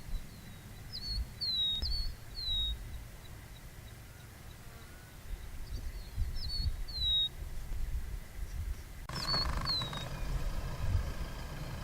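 A bird calling: a short high phrase, a quick up-and-down note followed by a falling whistle, repeated four times. Underneath runs a low rumble that grows into a broader steady noise about nine seconds in.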